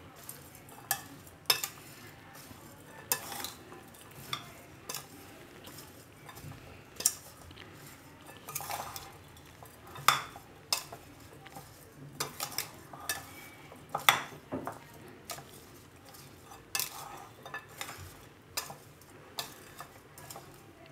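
Metal spoon stirring chopped raw mango, garlic cloves and pickle spice mix in a glass bowl: irregular clinks of the spoon against the glass over a soft scraping of the mixture.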